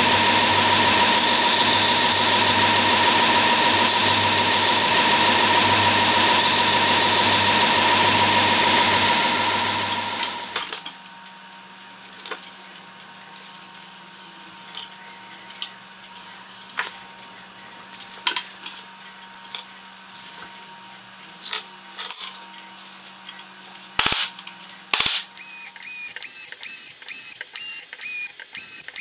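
A belt sander grinding a brass sword guard held against the moving belt: a loud, steady grinding with a hum that stops about ten seconds in. Then faint scratching and small clicks as the steel tang is marked out, two sharp knocks, and near the end a drill press starting to bore into the steel tang with a rhythmic whirr.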